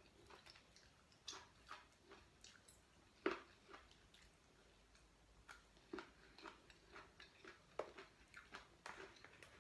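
Quiet chewing and mouth sounds of someone eating raw vegetables: scattered soft crunches, smacks and clicks, the loudest a little over three seconds in and again near eight seconds in.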